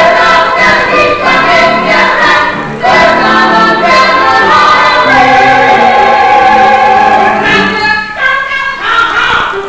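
A group of voices singing a show tune together over musical accompaniment, holding one long note about five seconds in.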